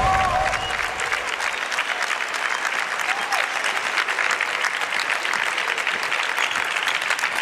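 A crowd of people clapping: steady, dense applause.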